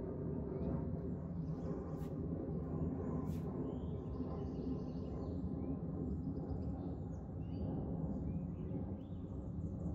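Small birds chirping and calling in short scattered notes, over a steady low background rumble.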